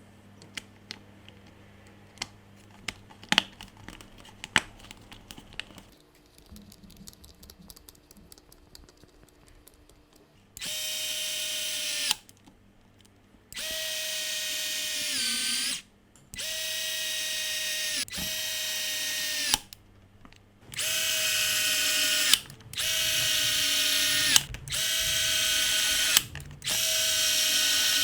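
DeWalt DCD710 12-volt cordless drill's motor run in a series of short bursts, seven or so, each a steady high whine lasting about two seconds, one sagging in pitch as it stops. Before the first run, light clicks and taps of handling.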